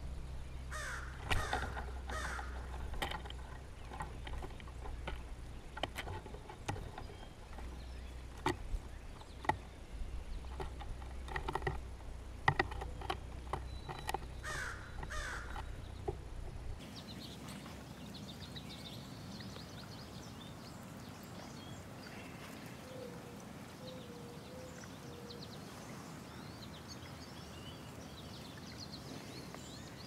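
Birds feeding at a hollow-log feeder make sharp taps and clicks as their beaks strike nuts, seeds and wood. Harsh crow caws come near the start and again about fifteen seconds in. Then the tapping stops, leaving quiet woodland background with faint distant birdsong.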